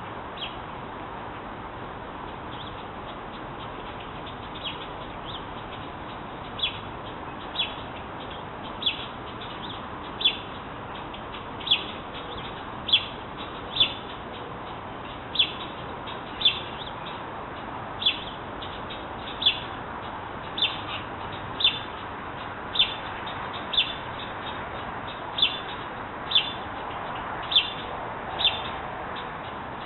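Baby bird chirping: short, high single chirps repeated about once a second. They begin faintly a few seconds in and grow louder, over a steady background hiss.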